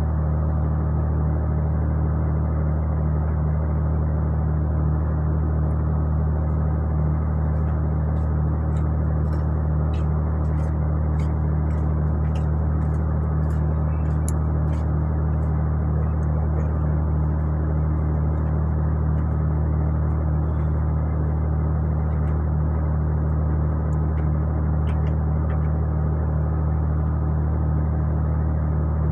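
Ship's engines and machinery running with a steady low hum, with a scatter of faint light clicks in the middle.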